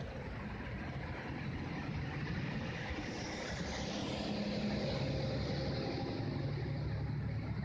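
Honey bees buzzing at the hive entrance: a steady drone with a wavering low hum, a little louder through the middle.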